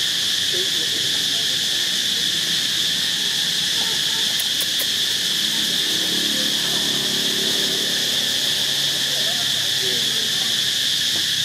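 A steady insect chorus: a continuous high-pitched drone that does not let up.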